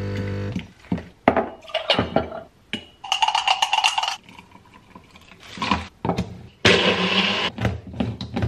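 An espresso machine's pump hum cuts off about half a second in. Then come kitchen handling sounds: spoon and glass clinks and taps, a spoon stirring in a glass jar, and short pouring noises as ingredients go into a blender cup.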